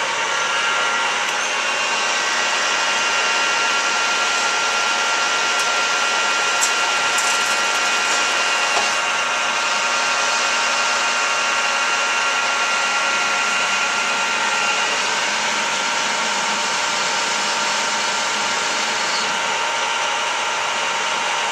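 Metal lathe running steadily while turning metal, a continuous whir with several steady gear whines; a few of the whines stop about two-thirds of the way through.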